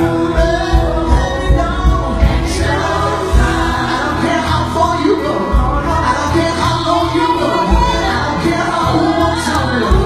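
Live gospel song: male lead singers on handheld microphones singing over a band with a strong, pulsing bass.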